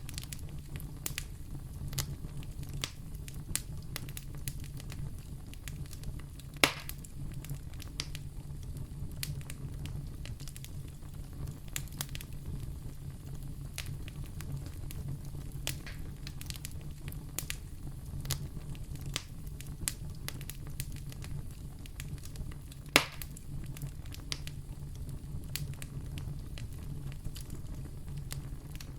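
Wood fire burning in a fireplace: a steady low rumble of flames with frequent small crackles and two sharper pops.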